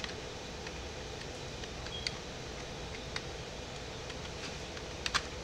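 A handful of sharp clicks from working a computer's mouse and keyboard, the loudest a close pair near the end, over a steady low room hum.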